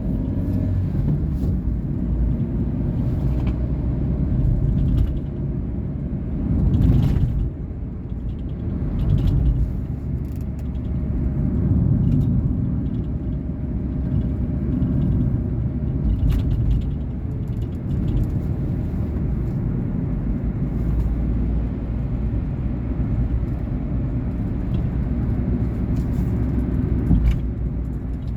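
2019 Volkswagen Polo Vivo driving, a steady engine and road rumble that swells briefly about seven seconds in.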